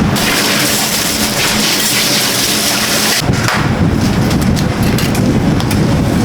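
Fried rice being cooked in a hot wok: a loud frying hiss for about three seconds, then a lower rumbling roar with a few light clicks.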